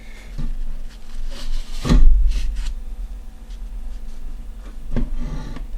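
Handling noise from graphics card parts being worked on by hand: a few knocks and rubbing, with the loudest thump about two seconds in and another about five seconds in.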